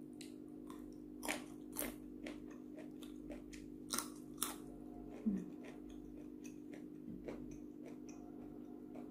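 Close-up crunching and chewing of a raw yardlong bean: sharp crunchy bites about a second in and again around four to five seconds, then softer chewing. A steady low hum runs underneath.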